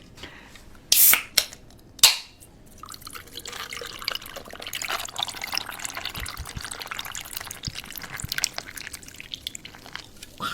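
A drink being opened, with a loud hiss about a second in and a sharp crack at two seconds, then poured, fizzing and trickling with fine crackle.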